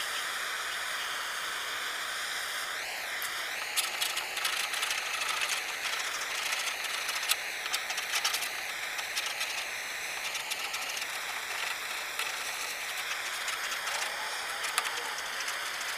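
Handheld propane torch burning with a steady hiss and a high, wavering whistle, heating old paint and body filler on a steel car door. A scraper scrapes and clicks against the softened paint now and then.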